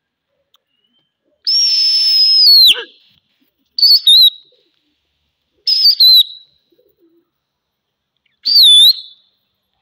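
Loud, shrill whistling by a pigeon fancier driving a flock of young pigeons to keep flying. First comes one long held whistle that drops in pitch at its end, then two quick double whistles, then a short wavering one near the end.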